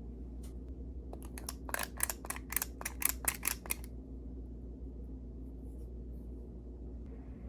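A quick run of about a dozen crisp clicks or snips, then stopping, over a steady low hum.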